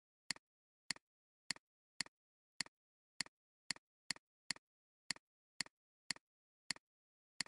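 Computer mouse button clicks, each a quick press-and-release pair, repeating at a fairly even rate of about two a second.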